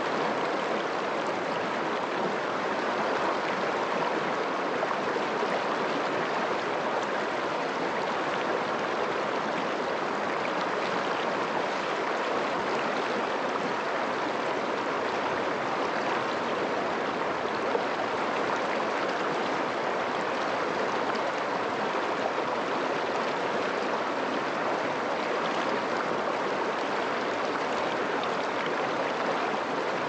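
Shallow stream running fast over rocks: a steady, unbroken rush and burble of water.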